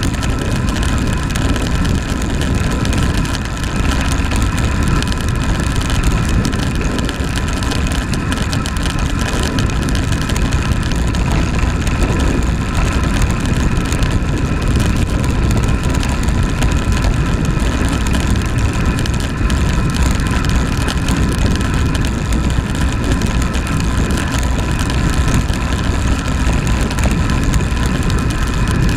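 Wind rushing over a handlebar-mounted camera's microphone and road noise from a road bike's tyres during a fast downhill descent: a steady, loud rush with a heavy low rumble and a faint steady hum.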